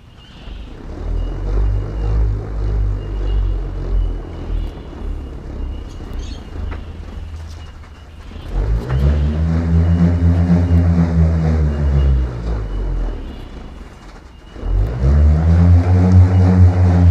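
Didgeridoo drone: a low buzzing drone, swelling into two long, loud notes, one beginning about halfway through and one near the end.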